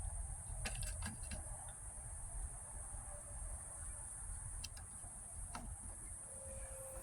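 A few faint sharp clicks, a quick cluster about a second in and two more later, over a steady high-pitched hiss and a low rumble.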